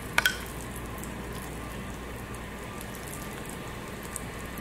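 Steady crackling sizzle of a hot stovetop griddle, with two sharp clicks just after the start.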